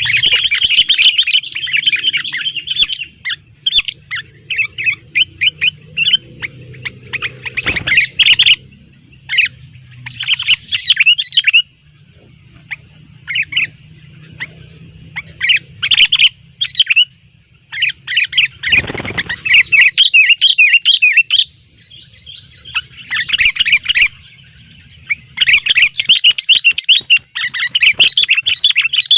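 Sooty-headed bulbuls (kutilang) calling loudly in bursts of rapid, chattering chirps, phrase after phrase with short pauses between. This is the energetic rival-calling song used to lure other bulbuls.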